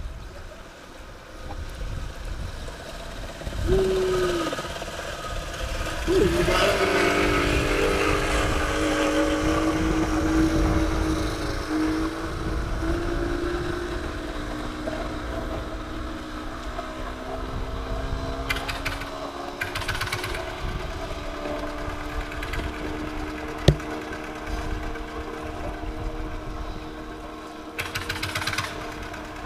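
A boat engine fires briefly, then starts a few seconds in and runs on steadily, its pitch sinking slowly as it settles. One sharp knock sounds later on.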